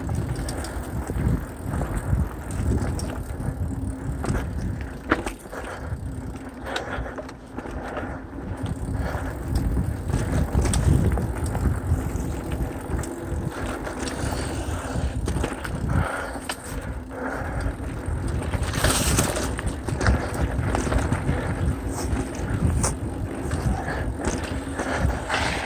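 Mountain bike being ridden over a dirt trail: a continuous rumble of tyres on the ground, with frequent clicks and rattles from the bike jolting over bumps.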